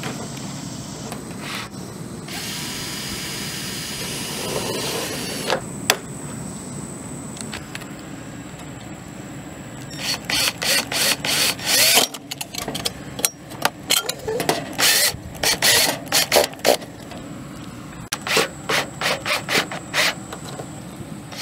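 Cordless drill driving self-tapping screws through a sheet-metal downspout strap into the siding. It runs in many short trigger bursts through the second half.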